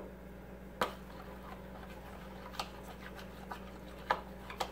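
Spoon clicking and scraping against a plastic mixing bowl as slime mixture is stirred: a few sharp clicks at irregular intervals, the loudest about a second in.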